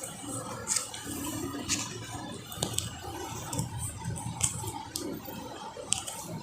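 Rustling and soft creaks with scattered sharp light clicks as a person shifts position on a treatment table.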